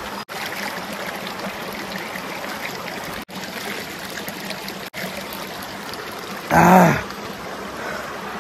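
Water running steadily from a bamboo pipe spout and pouring into a shallow stream. About six and a half seconds in, a man gives one short, loud exclamation, the loudest sound.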